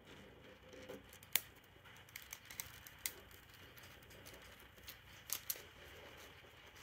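Thin plastic handled up close: a handful of faint, sharp clicks and crinkles from the clear protective film on a diamond painting canvas pressed by a fingertip, and from small zip-lock bags of resin drills being sorted.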